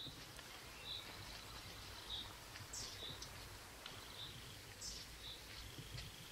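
Woodland birds calling faintly: a short chirp repeated about once a second, with two higher falling notes between them. A faint steady high tone and a low rumble run beneath.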